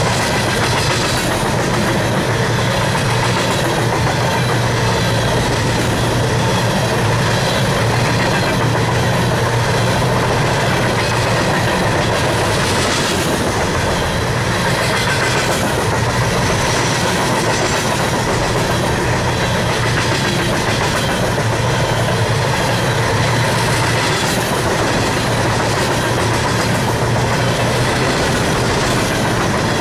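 Empty steel coal hopper cars of a freight train rolling past, with a steady rumble and the wheels clacking over the rails.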